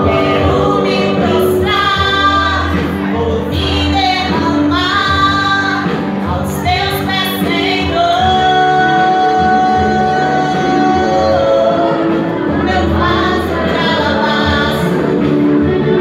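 A woman singing into a handheld microphone, holding long notes that waver in pitch.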